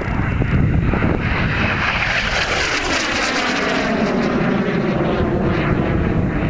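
Soko G-2 Galeb jet trainer flying past, its Rolls-Royce Viper turbojet loud and steady, with a whine that falls steadily in pitch over several seconds as the aircraft passes and climbs away.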